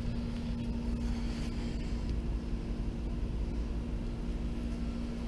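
Steady buzzing hum of a neighbour's air-conditioning unit, one strong pitch over a low rumble, with the Pioneer 12,000 BTU mini-split condenser running too quietly to stand out.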